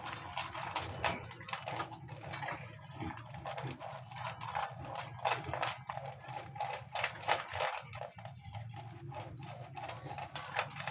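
Dog eating dry kibble from a stainless steel bowl: quick, irregular crunching of the pellets and clinks of food against the bowl, over a steady low hum.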